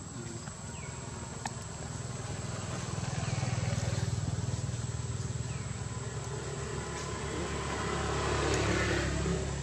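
A motor vehicle's engine running by, its low hum swelling about three seconds in and again louder near the end.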